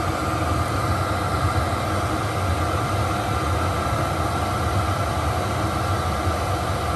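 Chinese diesel air heater (Webasto clone) running: a steady rush from its combustion and blower fans pushing hot air through the ducts.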